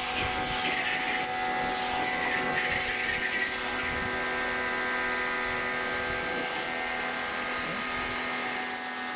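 Kinshin electric pressure washer running with a steady motor hum, its water jet hissing against a stainless-steel gate and wet floor tiles.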